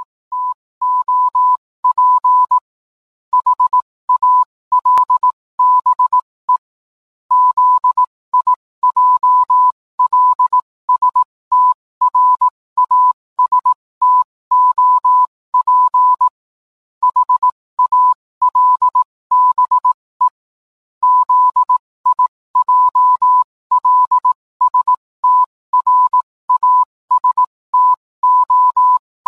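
A single steady electronic beep tone keyed on and off in a run of short and long beeps with uneven gaps, in the pattern of a Morse code signal.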